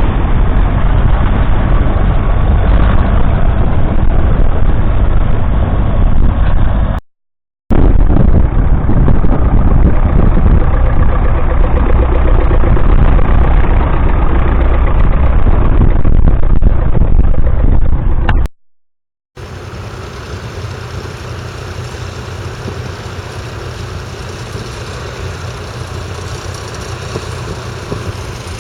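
Vintage tractor engines running while ploughing, in three clips. The first two are loud and heavy in the low end; after a cut just past halfway, a quieter, steadier engine runs to the end.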